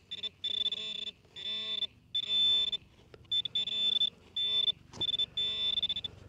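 Metal-detecting pinpointer alarm sounding as a high-pitched electronic buzz that cuts in and out in short, irregular bursts: it is being swept through dug soil and going on and off as it nears the buried target. A sharp click about five seconds in.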